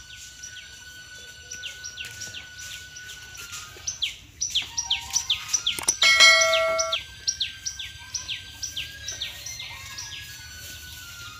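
Birds chirping: a rapid, repeated series of high, down-slurred whistled notes, several a second. About six seconds in, a click and a short bell-like chime ring out over them.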